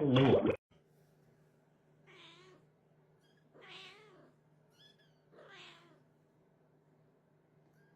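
A cat meowing three times, each meow about half a second long and a second or two apart. A brief loud end of a previous clip's music cuts off abruptly right at the start.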